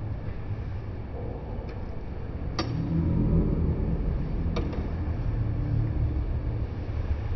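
Low steady rumble with two sharp clicks about two seconds apart.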